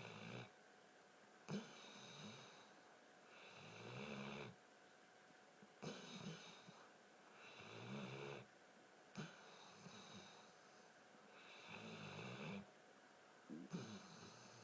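Weimaraner dog snoring in its sleep, faint. A rasping snore comes about every four seconds, with softer snuffling breaths and small clicks in between.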